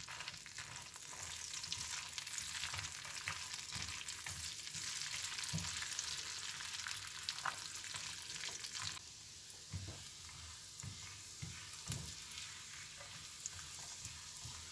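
Butter and olive oil sizzling in a frying pan as sliced shallots and walnuts fry, stirred with a silicone spatula that scrapes and taps against the pan now and then. The sizzle eases a little about nine seconds in.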